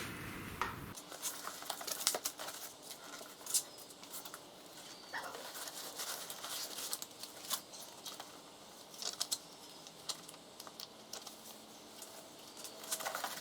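Parts and packaging of a CNC router kit being handled: scattered light clicks, taps and plastic crinkling, irregular and close.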